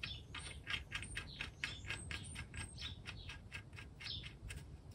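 Faint quick, even clicking, about five clicks a second, as the sump plug is wound back into the engine's sump; it stops about four seconds in.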